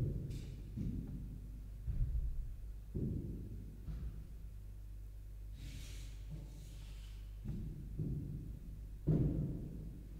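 Irregular dull, low thuds of a long pole and footfalls on a carpeted stage floor, the heaviest about nine seconds in, with a brief hiss around the six-second mark.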